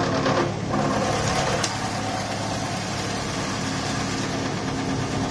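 Wood shaving machine running steadily, its motor and cutter giving a constant hum. The sound breaks off briefly about half a second in, and there is a single sharp click after about a second and a half.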